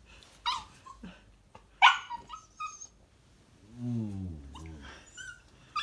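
Corgi puppy giving short, high yips and barks, the loudest about two seconds in, with a low groan falling in pitch around four seconds in.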